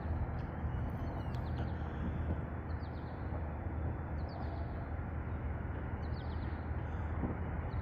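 Small birds giving short, falling chirps every second or so over a steady low rumble of outdoor background noise.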